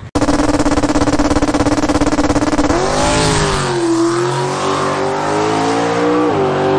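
Drag race car making a pass at full throttle. The engine note holds high and steady at first, climbs about three seconds in, dips, then jumps up again near the end.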